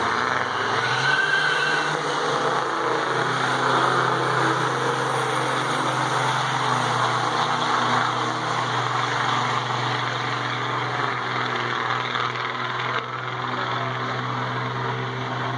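Diesel pickup trucks racing down a drag strip at full throttle, a loud, steady engine drone that eases a little near the end.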